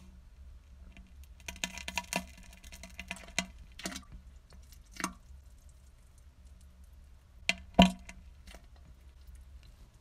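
Defecation sound effect: wet squelching and crackling, then a single loud plop into toilet water about eight seconds in.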